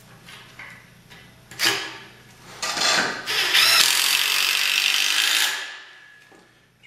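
A single sharp knock, then a power drill driving a screw into log wood for about three seconds before stopping.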